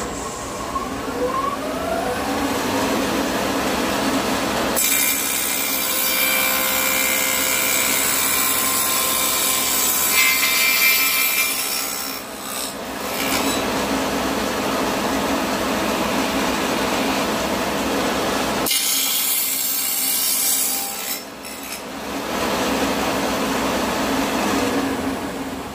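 Shopsmith in table-saw mode with a 6-inch dado blade, coming up to speed with a rising whine near the start. It then cuts an end rabbet in a softwood board in two passes, a long one and a short one, which sound harsher and brighter than the free-running blade. A dust collector runs under it all.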